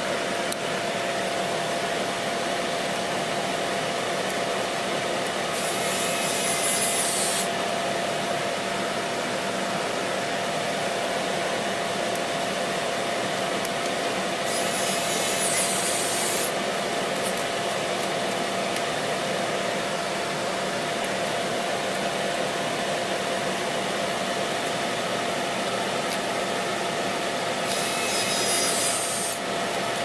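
Small screws being driven into a tablet's internal frame with a precision screwdriver: three short scratchy rubbing sounds, about six, fifteen and twenty-eight seconds in, over a steady workbench hum with a constant tone.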